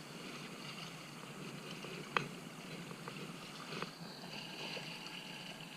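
Water lapping at the shoreline with wind noise, and a few sharp clicks, the loudest about two seconds in.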